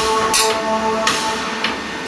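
Background music with held notes, broken by about three sharp knocks.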